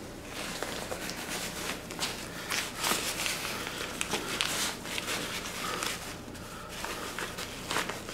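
Synthetic-fabric stuff sack and the deflated inflatable sleeping pad inside it rustling and crinkling in irregular scrapes as the pad is pushed down into the sack by hand.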